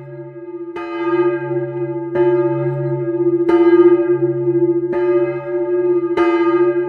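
The Friedensglocke, a large bell hung in a wooden bell frame, tolling steadily: five strokes about one and a third seconds apart, each ringing on into the next over a deep hum.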